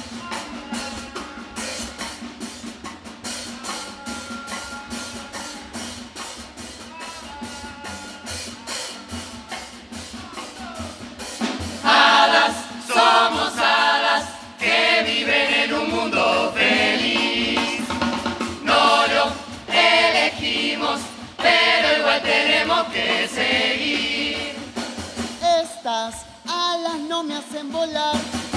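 Murga chorus performing: a steady drum rhythm with a faint melody over it, then about twelve seconds in the full chorus comes in loudly, singing together in harmony over the drums.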